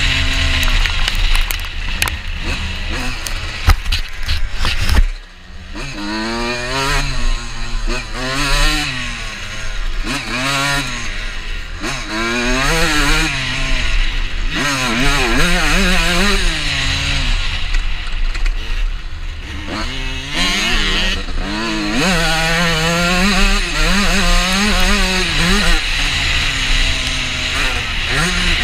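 Honda CR125 two-stroke motocross engine revving hard, its pitch climbing and dropping over and over as it accelerates through the gears and backs off. Constant wind rumble on the helmet camera, with a few sharp knocks in the first five seconds and a sudden short dip in the sound about five seconds in.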